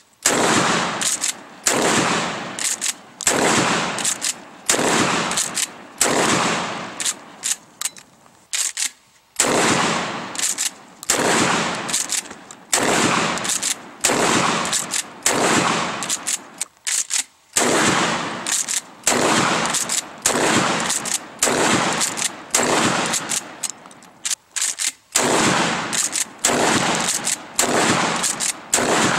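A Mossberg 590 Shockwave 12-gauge pump-action shotgun firing a long string of shots, roughly one every second or so, each blast trailing off in an echo. Short mechanical clacks of the pump being racked come between shots, with a brief pause about a third of the way in.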